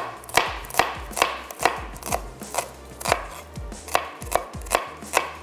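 Kitchen knife chopping onion on a cutting board in steady, even strokes, about two to three a second.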